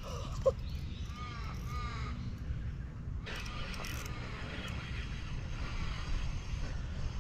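A crow cawing, about three drawn calls a second or so in, over a steady low rumble of wind on the microphone. A short sharp knock just before the calls and a brief rush of handling noise about three seconds in.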